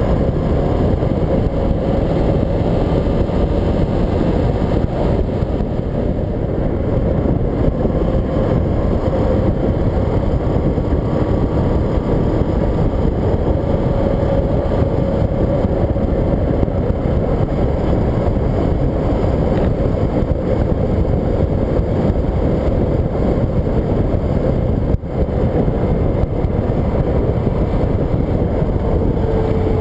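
Motorcycle riding steadily at road speed: a constant rush of wind and road noise on a camera mounted by the front wheel, with the engine running underneath. The noise drops briefly once near the end.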